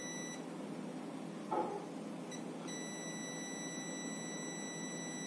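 SEW DT830D digital multimeter's continuity buzzer giving a steady high beep across a transistor's pins. The beep stops shortly after the start and sounds again from about halfway on, with a soft knock in the gap. The beep signals a short: the transistor is dead.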